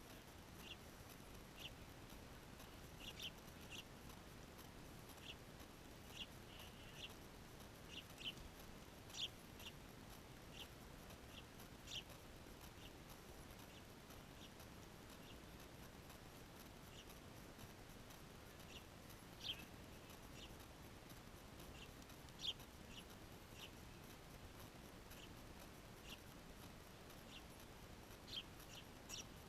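Small birds chirping: short, high peeps at irregular intervals, some a little louder than the rest, over a faint steady hiss.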